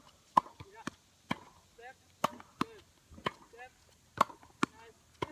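A tennis ball being struck by rackets and bouncing on a court, sharp pops about twice a second, with short squeaks in between.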